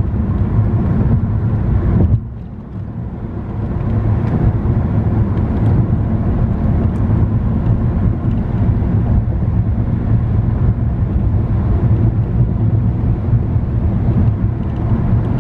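Steady road and engine noise inside a car's cabin while it cruises on the freeway near the speed limit. It dips briefly a little over two seconds in, then carries on as before.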